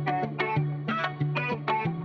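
Instrumental section of a pop soundtrack song with no singing: plucked notes in a steady rhythm over held bass notes.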